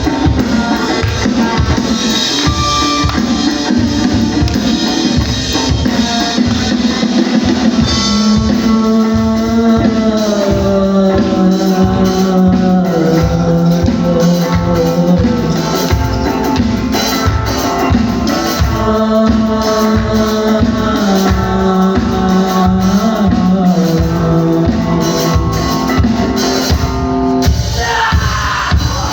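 Rock band playing live: a drum kit keeps a steady beat under guitar, and a held melody line comes in about eight seconds in and breaks off near the end.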